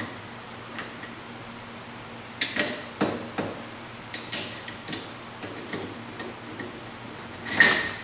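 Irregular sharp clicks and light knocks of a WE HK416 gas blowback airsoft rifle's parts being handled, starting a couple of seconds in, the loudest a longer scraping click near the end.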